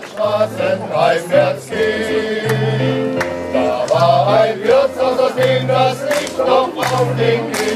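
Men's choir singing a song, with an electric keyboard accompaniment holding steady bass notes beneath the voices.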